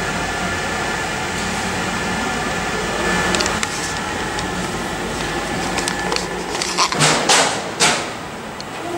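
Steady indoor hum and hiss, like ventilation or room tone in a large hall, with several short sharp noises about seven to eight seconds in.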